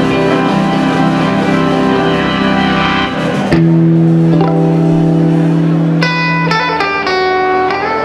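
Live band music with long held chords on Hammond organ and guitars, the sound of a song being brought to a close. The chord changes about three and a half seconds in, and higher sustained notes come in near the end.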